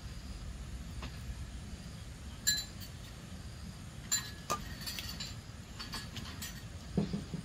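A few sharp, light clinks with a brief ring, the clearest about two and a half seconds in and twice around four seconds, then smaller taps and a dull thump near the end, over a steady low rumble.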